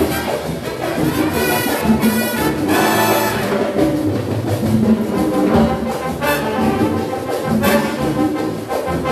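Live Latin big band music: trumpets and trombones playing over a repeating bass line and percussion, with bright cymbal-like crashes now and then.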